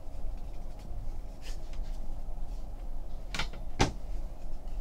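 Trading cards being handled and flipped in the hands. Two sharp clicks come about half a second apart, a little over three seconds in, over a low steady hum.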